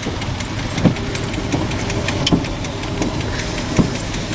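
Inside a van on the move in heavy rain: the engine and road noise make a steady low rumble, with irregular ticks and taps over it.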